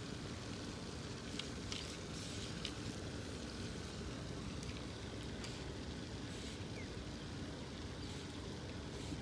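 Steady low rumble of water and wind around a small kayak, with a few faint clicks.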